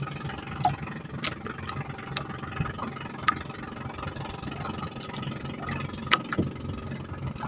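A small engine running steadily at idle, with a few sharp clicks and knocks over it.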